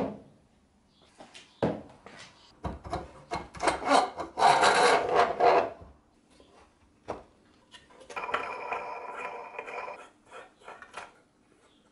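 PVC drainpipe sanding drum and wooden frame parts knocking and scraping against each other as the drum is fitted by hand into its wooden frame. There is a sharp knock at the start and a few taps, then a dense scraping stretch of about three seconds, then a steadier rub a couple of seconds later.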